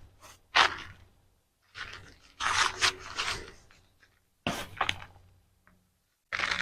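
Hands digging through soil and pulling sweet potato roots in a grow bag: rustling, scraping and tearing in several short bursts, the longest about halfway through.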